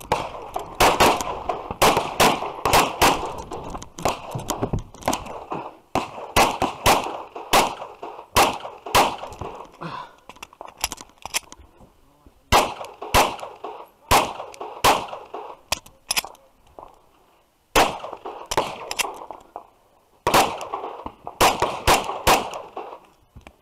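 9mm Glock 34 pistol fired in quick pairs and strings of shots, with short pauses between groups and a longer lull about two-thirds of the way through.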